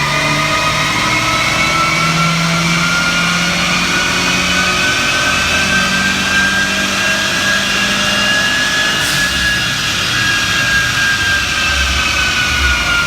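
Tuned performance car engine held at high revs under load on a chassis dyno, with a loud high whine that slowly rises in pitch and then falls off near the end.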